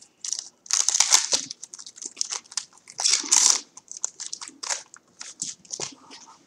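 Crinkling and crackling of a trading-card pack wrapper being torn open and handled, in irregular bursts that are loudest about a second in and again around three seconds in.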